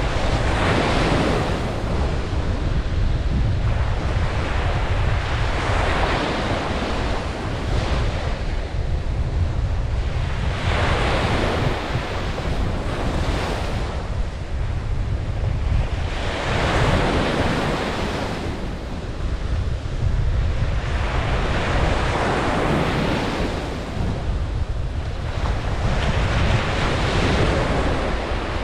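Ocean waves breaking on a beach, each wash swelling and fading about every five seconds, over a steady low rumble of wind on the microphone.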